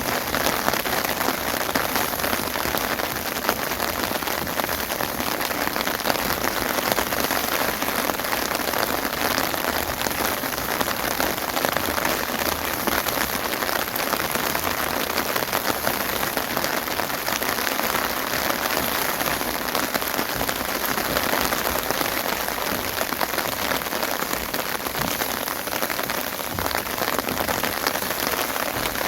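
Steady rain falling, a dense even hiss of countless drops striking surfaces, with no lull or change.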